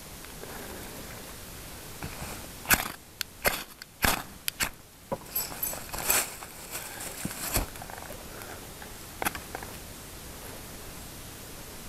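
Dry sticks being snapped and knocked together, a run of sharp cracks from about two seconds in to nearly eight, then one more a little after nine seconds, over a faint steady hiss.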